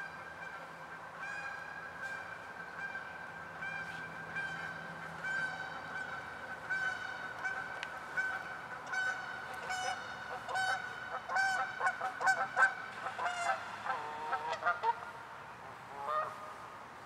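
Geese honking over and over, the calls coming faster and loudest about ten to thirteen seconds in, then thinning out near the end.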